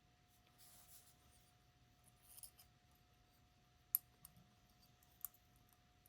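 Faint metallic scrapes and a few sharp clicks as a shaved-down key and a lock pick are handled at a four-lever lock. The loudest click comes about four seconds in and another just past five.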